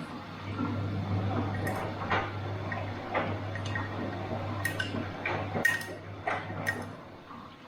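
Bosch front-loading washing machine in its wash cycle: the drum motor hums while water and laundry slosh and knock inside the turning drum. The hum stops about seven seconds in as the drum pauses.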